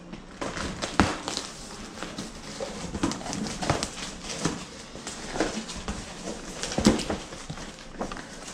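Cardboard shipping box being cut open with a box cutter and handled: irregular scraping and clicking, with a sharp knock about a second in and another about a second and a half before the end.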